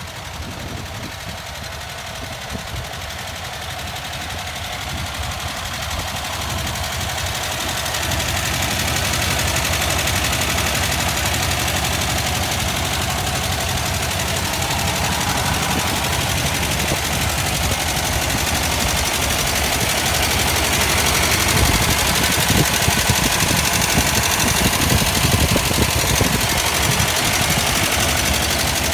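1951 Cadillac Series 62's 331 cubic-inch overhead-valve V8 running steadily, a rapid even stream of firing pulses, louder after the first several seconds. It is an unrestored engine with too much clearance on one valve in each of two cylinders, which show lower compression.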